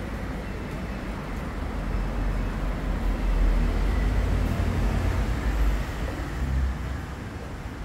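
Low rumble of street traffic from the road below the flat, swelling in the middle and easing near the end.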